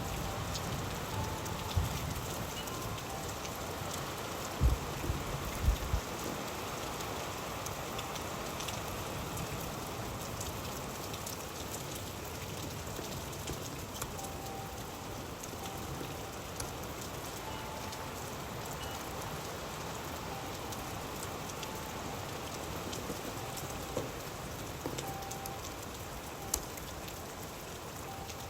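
Steady rain falling on surfaces, with individual drops ticking and a few low thuds about five seconds in.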